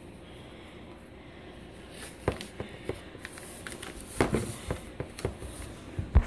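Quiet room tone at first, then, about two seconds in, close knocks, taps and rubbing as the phone camera is handled and set back up, getting busier toward the end.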